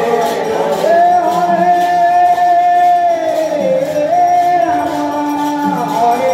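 Devotional kirtan singing with instrumental accompaniment: a singer holds one long note for about two and a half seconds, dips, then holds another shorter note.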